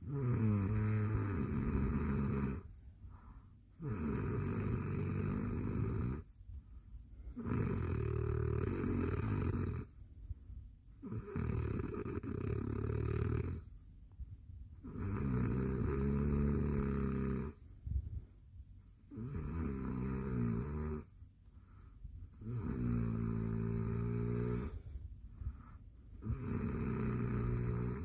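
A man snoring loudly in deep sleep: eight long snores, one about every four seconds, with quieter breathing gaps between them.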